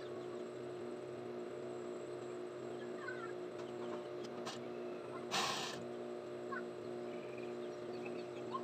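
Juki industrial sewing machine's motor running with a steady hum, with a short noisy burst about five seconds in.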